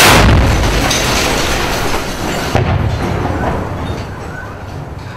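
A loud blast from a shoulder-fired rocket launcher fired inside a room, rumbling and echoing away over about two and a half seconds. A smaller second bang comes about two and a half seconds in, then the rumble fades.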